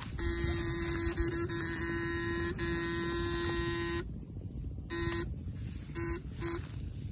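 Homemade backpack electrofishing rig buzzing as current is switched through the poles into the ditch water. The buzz holds steadily for about four seconds, then comes in three short bursts as the switch is pressed on and off.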